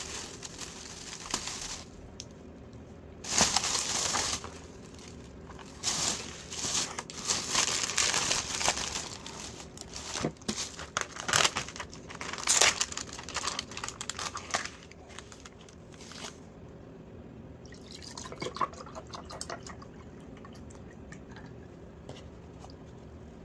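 Thin plastic takeout bag being untied and rustled, then the plastic film peeled and crinkled off takeout food trays, in irregular loud bursts. Near the end a drink is poured into a glass, more faintly.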